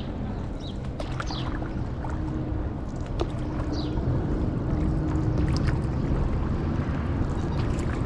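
Stand-up paddle board moving along a river: the paddle dipping, water splashing and trickling around the board, over a steady low rumble.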